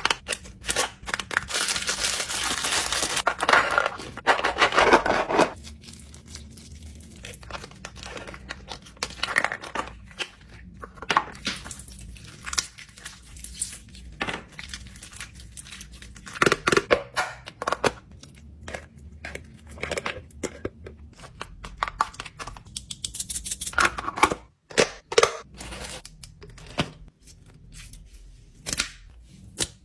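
Food-shaped fidget toys and their plastic being handled: about five seconds of ripping and crinkling at the start, then scattered clicks, taps and rustles.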